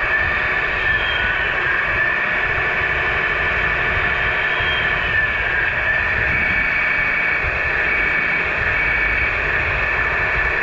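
1/14-scale RC semi truck's electric motor and gearbox whining steadily while it drives, the whine shifting slightly in pitch as its speed changes, over a low uneven rumble.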